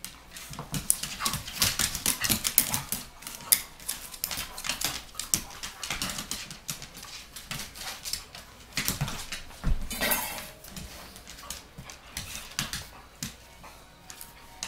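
Two dogs play-fighting on a hardwood floor: a dense run of quick snaps, clicks and short dog noises, busiest in the first few seconds, with a louder burst about ten seconds in.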